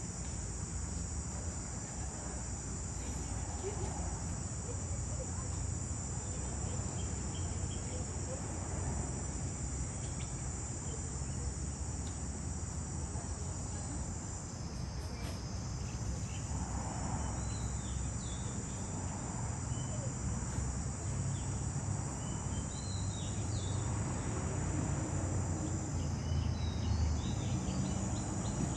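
A steady, high-pitched chorus of insects buzzing without a break, dipping briefly twice, over a low rumble.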